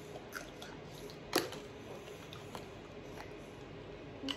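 Quiet eating and tableware sounds: a few faint small clicks and one sharper click about a second and a half in.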